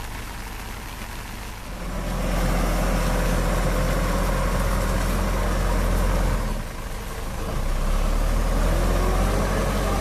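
JCB backhoe loader's diesel engine running, steady at first and then revving up about two seconds in as the machine works through soft mud; the revs drop briefly about seven seconds in and rise again.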